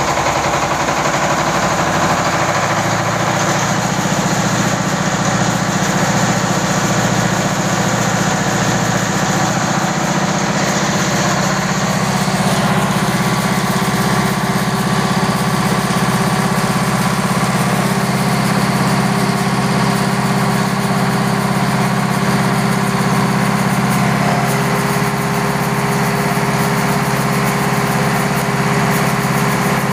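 Yanmar TF300 single-cylinder diesel engine running steadily under load, driving a YMM20 rice milling machine and its grain elevator: a continuous, even machine din.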